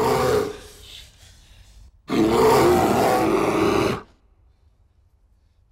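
A black bear roaring on a film soundtrack: one loud, rough roar of about two seconds starting about two seconds in, after a shorter loud cry at the very start.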